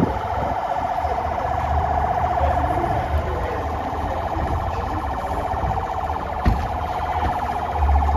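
Vehicle siren sounding a fast, steady-pitched warble, with a single thump about six and a half seconds in.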